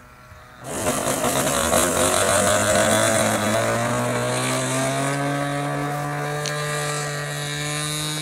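An RC aerobatic plane's OS MAX 46 AX two-stroke glow engine at high throttle, close by, on its takeoff run. It starts abruptly less than a second in, after a faint distant buzz. Its pitch climbs slowly as the plane gathers speed and lifts off.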